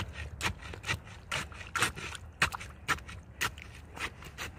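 A stick being worked into wet concrete around a post's base: a string of short, irregular taps and scrapes, about two or three a second.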